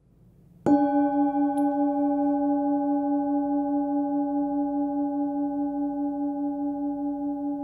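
A 16.5 cm hand-hammered Tibetan singing bowl, struck once about two-thirds of a second in and then ringing on, pitched around 290 Hz (between C-sharp and D) with several higher overtones. The ring wavers slowly in loudness as it fades.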